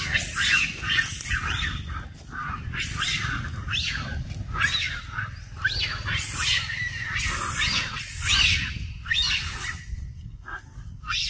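A troop of long-tailed macaques calling, with many short, high squeals that rise and fall one after another, thinning out near the end, over a steady low rumble.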